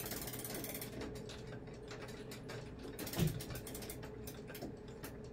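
Seth Thomas grandfather clock's winding chain being pulled by hand, the chain sprocket's ratchet clicking rapidly as the weight is drawn up. A single louder knock comes about three seconds in.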